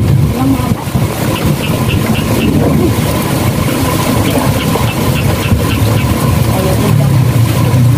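Small engine running steadily with a low, even hum, the motor of a water pump at a rice paddy.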